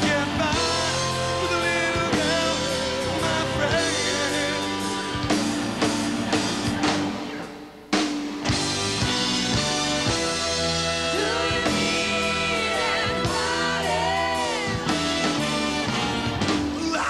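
Live pop-rock band playing, a sung vocal line over a drum kit. About halfway through the music thins out briefly, then comes back in on a sharp drum hit.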